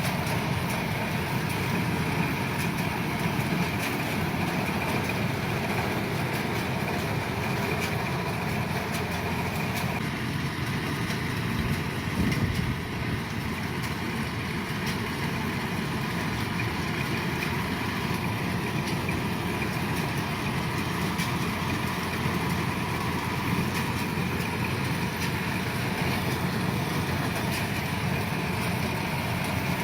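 Kubota DC-105 combine harvester's diesel engine and threshing machinery running with a steady drone, with a brief louder moment about twelve seconds in.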